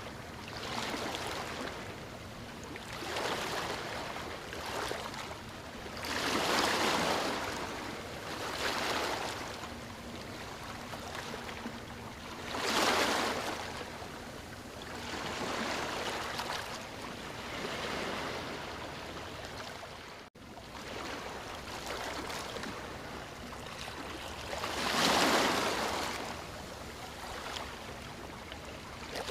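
Waves breaking and washing up a beach, coming in as a swell every few seconds; the biggest are about 7, 13 and 25 seconds in.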